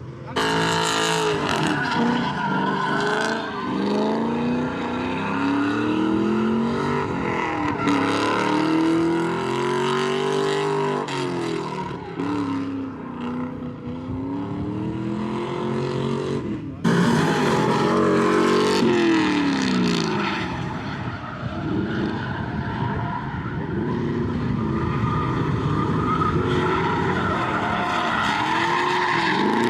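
Drift cars on track, their engines revving up and down hard over and over, with tyre noise from the sliding. The sound changes suddenly about two-thirds of the way through.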